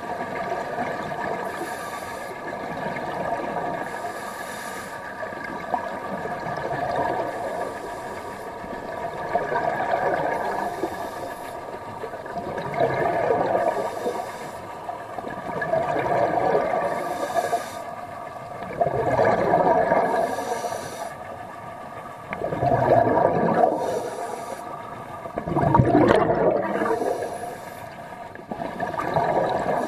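Scuba diver breathing through a regulator: a short hiss on each inhale and a gush of bubbles on each exhale, repeating about every three seconds.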